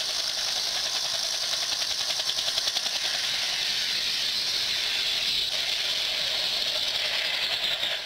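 A steady hissing sound effect, with no bass, played back by an Adafruit Audio FX Mini sound board through an LM386 amplifier and a small speaker. It cuts off suddenly near the end.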